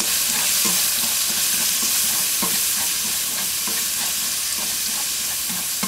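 Diced tomatoes sizzling in hot oil in a granite-coated nonstick wok over high heat, stir-fried with wooden chopsticks. The steady hiss is broken by light taps about twice a second.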